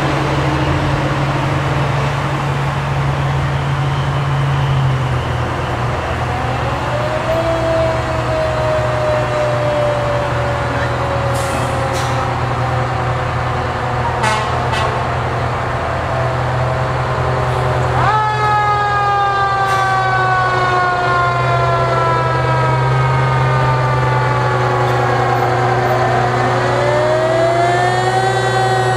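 Antique fire trucks passing with engines running in a steady low drone while their sirens wail: one winds up about a quarter of the way in and slowly drops in pitch, a louder one comes in suddenly about two-thirds in and slowly falls, and another winds up near the end. A few short sharp clicks or knocks occur around the middle.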